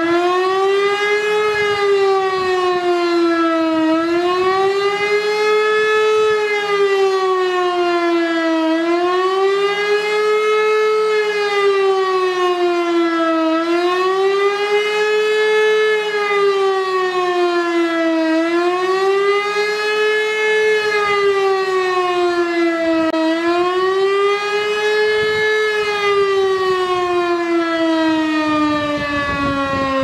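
E57 electric motor siren sounding a test alarm: a wailing tone that rises and falls about every five seconds, then begins winding down, its pitch sinking steadily in the last few seconds.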